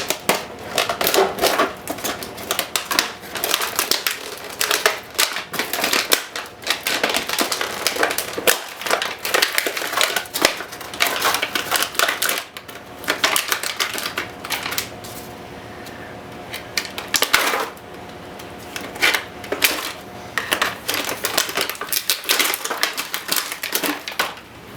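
Packaging crinkling and crackling in dense, irregular clicks as a drone's remote controller is worked free of it, with a few brief quieter stretches.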